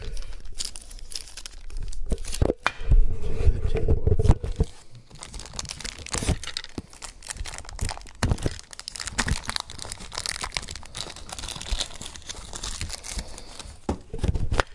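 Clear plastic packaging bag being crinkled and torn open by hand, a dense crackle of plastic, with heavier handling bumps about two to four seconds in.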